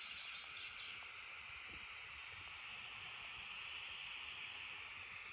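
Faint steady hiss, strongest in the upper-middle range, with a few faint short chirps near the start.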